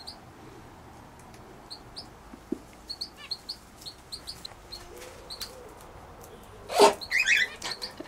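Small birds chirping in short, repeated high notes, and about seven seconds in a brown hare gives one short, loud, sneeze-like snort.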